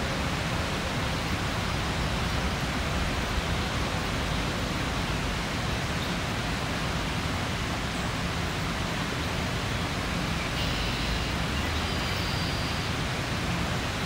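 Steady, even rushing noise, with a faint high-pitched bird song coming in about eleven seconds in and lasting a couple of seconds.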